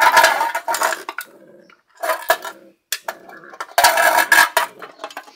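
Crushed aluminium drinks can clattering and scraping on brick paving as a Scottish terrier puppy pushes it along with her mouth, in three rattling bursts with a few sharp clinks between.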